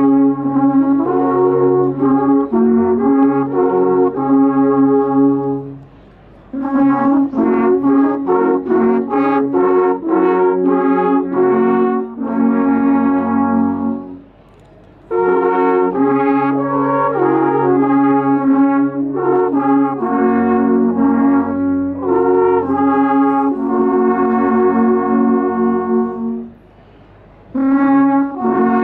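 Several alphorns playing a slow folk melody together in harmony, in long held phrases. The music breaks off in three short pauses between phrases, about six, fourteen and twenty-seven seconds in.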